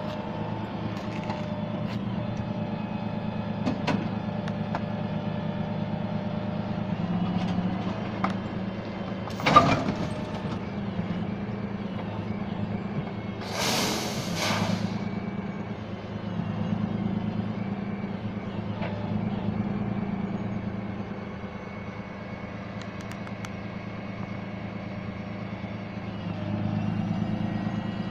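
Flatbed tow truck's engine running steadily while an SUV is pulled up its tilted bed. There is a sharp clank about a third of the way through and a loud hiss of air, about a second and a half long, around the middle.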